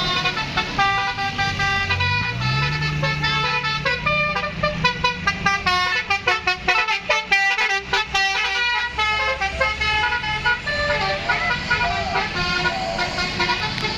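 Indonesian bus 'telolet' multi-tone horn playing a quick melody of stepped notes, with fast stuttering blasts in the middle. The bus's engine runs underneath and rises in pitch about two seconds in.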